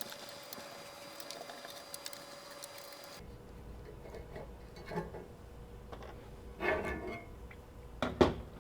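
Small metallic clicks and ticks of a T-handle hex key working the small screws of a light bar frame's logo plate, with a cluster of clicks near the end.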